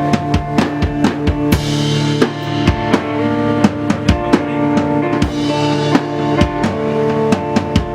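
Live band playing: a drum kit with busy kick and snare hits over sustained guitar and bass.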